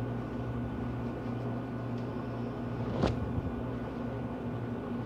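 A steady electrical hum in the room, with a single sharp knock about three seconds in.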